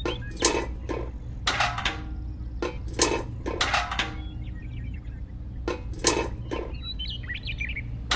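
Small metal toy buckets clinking and knocking as they are handled, set down and tapped against a toy cement mixer, about seven separate clinks with a short ring, over a steady low hum.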